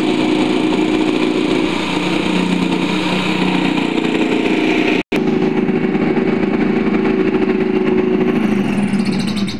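Handheld electric jigsaw cutting a circle out of a plywood sheet: a steady motor whine and blade buzz, broken by a sudden split-second gap about halfway through.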